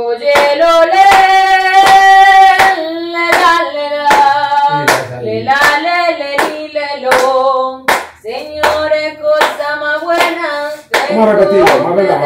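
A voice singing long held notes over a steady beat of sharp hand strokes on a drum, about two to three strokes a second.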